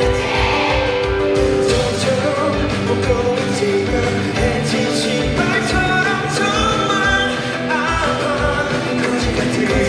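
Live pop-rock band playing with a lead singer, over a steady drum beat.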